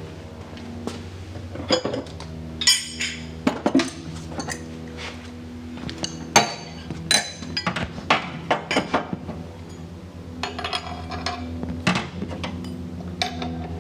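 Metal clinks and taps of hand tools and fittings being worked, irregular and spread through the whole stretch: parts and wrenches knocking as a fuel pickup hose is hooked up to a fuel cell's fill plate.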